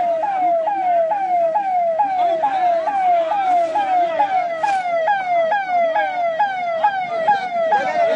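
Ambulance siren sounding continuously: a quick falling wail that snaps back up and repeats about twice a second.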